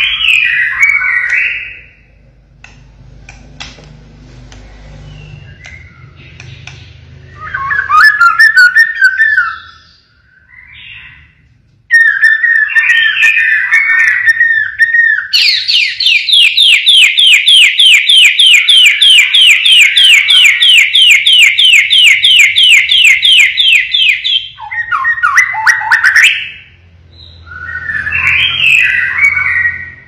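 Pied ('blorok') white-rumped shama singing in a cage: loud, varied whistled phrases, then a long run of rapid repeated notes, about five a second for some nine seconds (the 'tembakan' burst), then more whistled phrases near the end.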